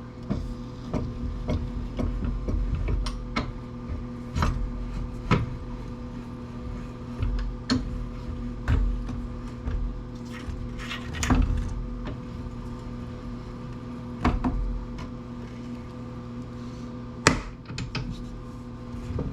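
Tools and metal parts being handled on a workbench: scattered knocks, clicks and clatter over a steady low electrical hum.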